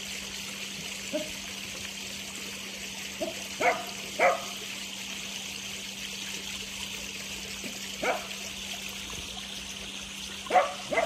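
Pond water trickling steadily, with a faint low hum under it, while a dog gives short barks every few seconds, two of them in quick pairs.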